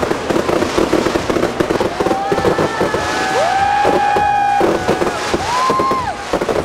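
Fireworks crackling and popping in rapid succession, with people cheering and shouting long whoops over them.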